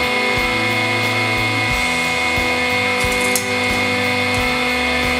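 Hydraulic press running with a steady motor and pump hum as its red-hot ram bears down on an aerosol can, with a brief crackle about three seconds in as the can starts to give way.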